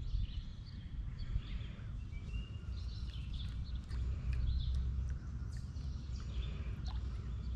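Birds chirping and calling here and there over a steady low rumble of outdoor background noise.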